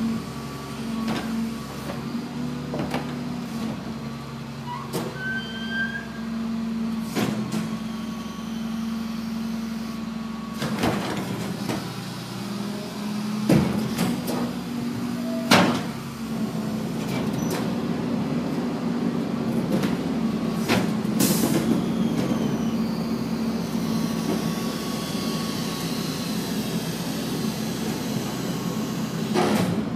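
Rear-loader garbage truck running steadily while wheeled trash carts are tipped into its hopper by hand, with repeated clanks and knocks of the plastic carts against the hopper; the two loudest knocks come about halfway through. The truck noise grows louder in the second half.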